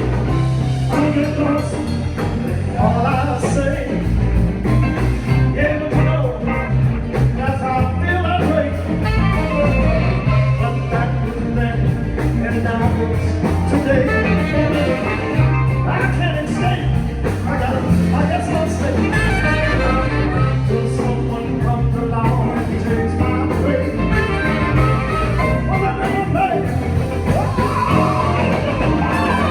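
A band playing a rock and roll song with a singer over a steady bass line and guitar.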